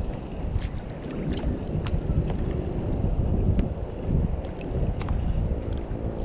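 Wind buffeting the microphone and water lapping against a sit-on-top kayak on choppy sea, with scattered small sharp ticks.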